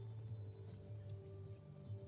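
Soft ambient background music of low, held tones.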